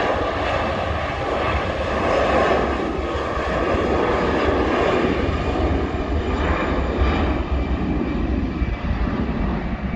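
Airbus A320-214 jet engines (twin CFM56 turbofans) at takeoff power during the takeoff roll: a loud, steady jet noise with a deep rumble underneath.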